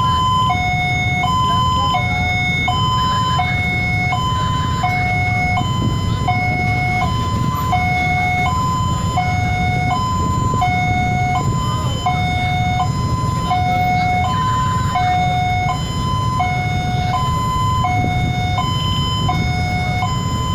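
Railway level-crossing warning alarm sounding a two-tone electronic signal, a high and a low tone taking turns about every half second. Under it runs the low rumble of idling motorbike and road traffic.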